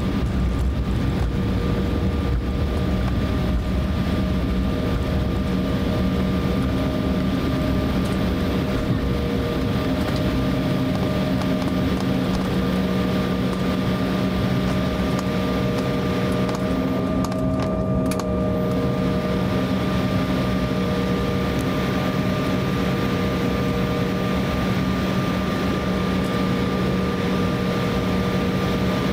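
Cabin noise of an Embraer E170 rolling out after landing and turning off to taxi: the steady hum of its General Electric CF34 turbofans, with several steady tones, over a low rumble from the wheels that is heaviest in the first ten seconds or so as the jet slows.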